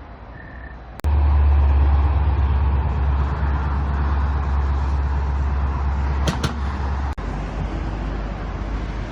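Loud, steady low rumble of a vehicle on the move, cutting in suddenly about a second in and dropping slightly after a brief break near the end.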